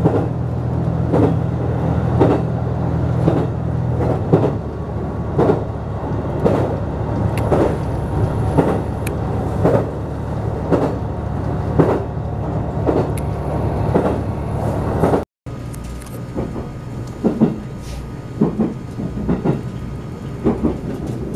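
HB-E300 series hybrid train running at speed, heard from inside the car: the wheels clack over rail joints about once a second under a steady running noise. A low steady hum cuts out about four seconds in. Near the end there is a brief break, after which the clacks are quieter and less regular.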